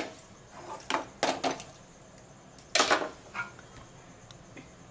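Several short clicks and knocks: the loudest right at the start, a quick cluster about a second in, and another about three seconds in.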